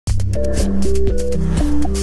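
Music with a melody of held notes over a steady bass line and a regular beat, starting abruptly.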